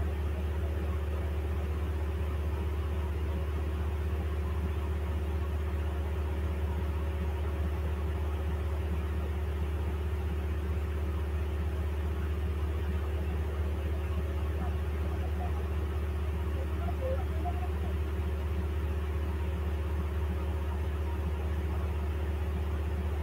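Steady low mechanical hum, like a motor or appliance running, with no change in level or pitch.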